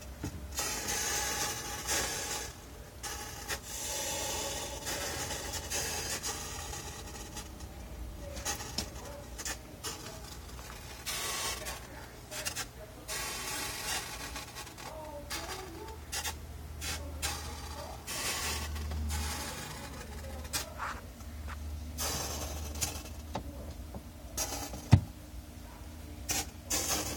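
Refrigerator making an irregular, strange noise: uneven scratchy, crackling hiss that comes and goes over a steady low hum, with one sharp click near the end.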